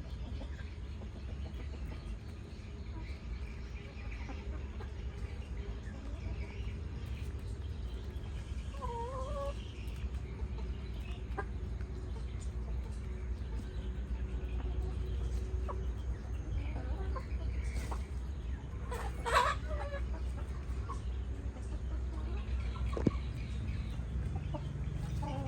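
Chickens clucking, with scattered short calls; the loudest comes about two-thirds of the way through. A steady low rumble runs underneath, and there is a single sharp click near the end.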